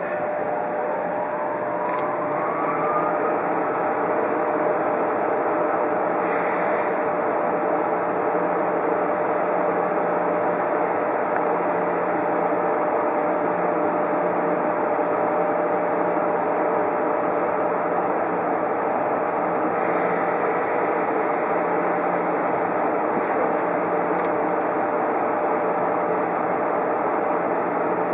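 EF66 electric locomotive standing with its auxiliary machinery running: a steady whirring hum with a held tone, and a whine that rises in pitch over the first three seconds and then levels off. Short hisses of air come about six and twenty seconds in.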